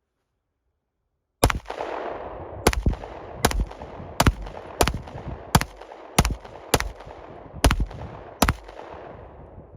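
Glock 48 MOS 9mm pistol fired ten times in a steady string, roughly a shot every three-quarters of a second, each shot with an echoing tail, emptying a ten-round magazine. The shooting starts about a second and a half in.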